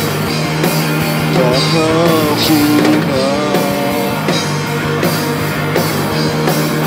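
Live rock band playing: electric guitars over a drum kit, in a punk or grunge style.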